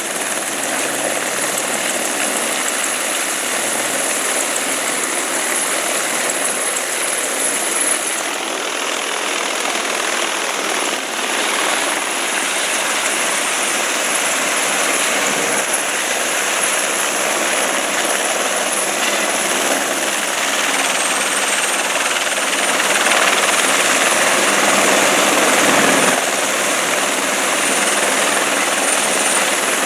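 Light turbine helicopter running close by, its rotor noise under a steady high turbine whine. The whine drops slightly in pitch about two-thirds of the way through. The sound grows a little louder, then dips suddenly near the end.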